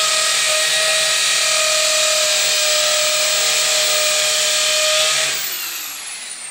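Corded electric drill boring a hole into a wall, running at a steady high speed. A little over five seconds in the trigger is released and the motor winds down with a falling whine.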